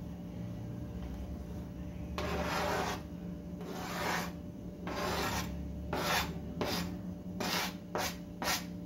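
Spatula scraping and pushing diced onion around an oiled frying pan, in rasping strokes that start about two seconds in and come faster and shorter toward the end.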